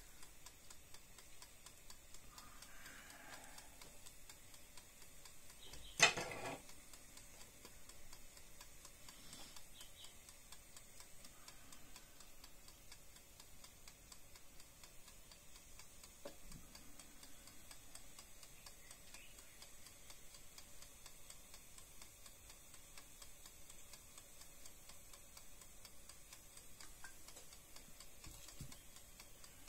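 Cooking oil heating in an open electric hot pot, crackling faintly with fine, even ticks, over a faint steady hum. One sharp clatter about six seconds in is the loudest sound.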